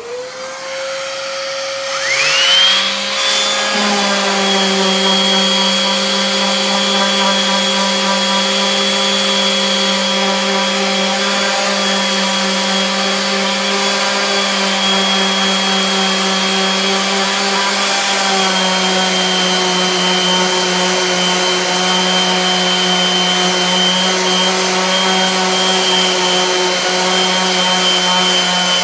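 Electric sander starting up with its pitch rising quickly, then running steadily as it sands down Bondo wood filler on a wooden nightstand. A second, higher whine spins up about two seconds in and runs on with it.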